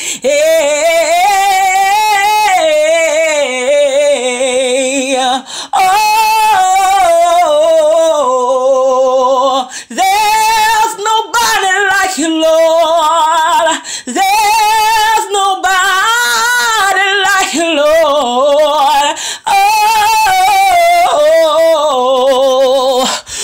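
A woman singing a gospel worship song without words, in long held notes and runs with heavy vibrato, several phrases broken by short breaths.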